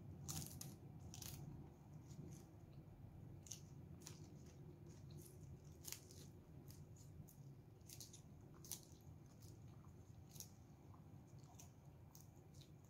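Faint, irregular crisp crunching and mouth clicks of someone chewing raw leafy greens.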